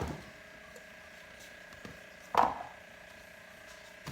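A single short knock about halfway through, as parts of the pressure washer are handled while being unpacked. Otherwise only a faint steady hum.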